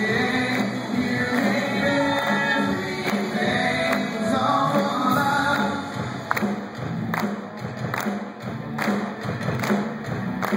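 Live amateur praise band: group singing over electric guitars and drums. About six seconds in the singing drops away, leaving a steady thumping beat a little over once a second.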